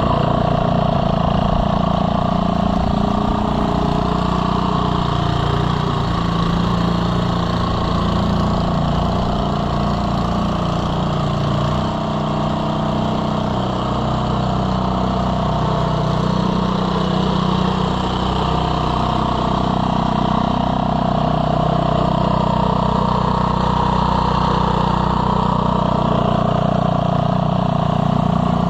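Gilson-built 1979 Montgomery Ward snowblower's 3.5 hp Briggs & Stratton single-cylinder engine running steadily while clearing wet, slushy snow. Its pitch wavers slightly, sagging a little around the middle.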